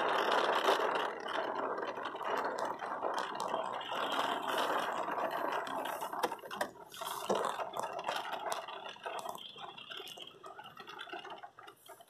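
Heavy rain falling on a car's roof and windscreen, heard from inside the car, with many separate drop ticks in the steady wash; it grows quieter over the last few seconds.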